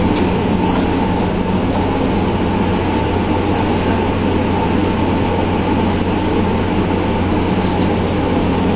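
Steady drone of a fishing vessel's engine and machinery, with a constant rush of water from the spray and the sea along the hull.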